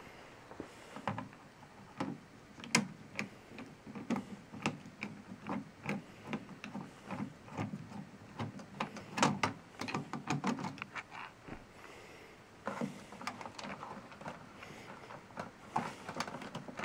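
Irregular clicks, taps and scrapes of a screwdriver loosening the screws of a D-sub cable connector, and of the connector being worked free, inside a 1998 Apple G3's chassis.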